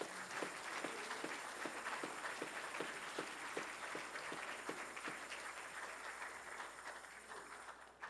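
Congregation applauding: a dense patter of hand claps with a steady beat of about two to three claps a second running through it, fading out near the end.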